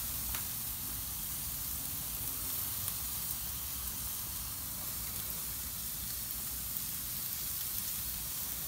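Thin New York strip steaks sizzling on hot gas-grill grates: a steady crackling hiss, with a low steady rumble underneath.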